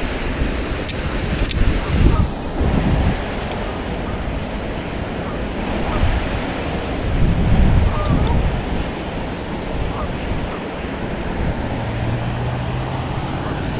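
Wind buffeting the microphone over a steady rushing noise outdoors, with strong gusts about two seconds in and again around seven to eight seconds. Near the end a low, steady motor hum comes in.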